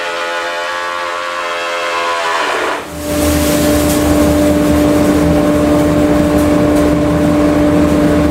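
Benchtop thickness planer running as a rough-sawn oak board feeds through it: a motor whine for about three seconds, then after a brief dip a louder, steady hum with a rushing noise.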